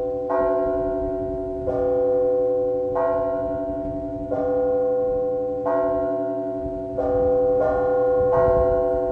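Russian church bells rung in a matins peal: a bell is struck about every second and a half, with two quicker strokes near the end, each ringing on over the lasting hum of the others.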